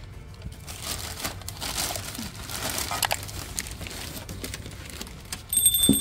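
Plastic takeout bag crinkling and rustling as it is lifted out of an insulated delivery bag. Near the end a high bell-like ding starts.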